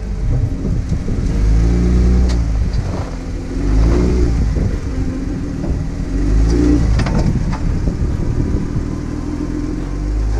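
Jeep Wrangler engine revving in three or so surges as the Jeep crawls up granite rock ledges, its pitch rising and falling with the throttle. A few sharp knocks come through over the engine.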